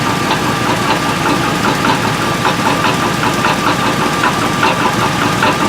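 2003 Chevrolet Tahoe's V8 idling with a fast, even run of light knocks. The mechanic says it sounds like a broken flex plate; the engine also has an exhaust leak.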